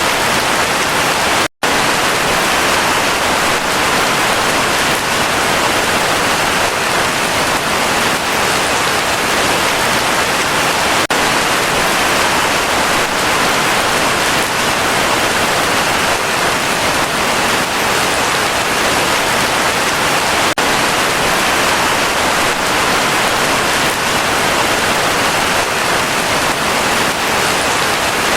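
Heavy rain falling steadily, a dense, even hiss of rain with no thunder. The sound cuts out completely for a split second about a second and a half in, then resumes at once.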